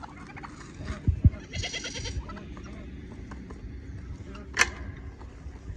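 A farm animal's call, heard once for about half a second roughly one and a half seconds in. Dull thumps come just before it, and a single sharp click comes near the end.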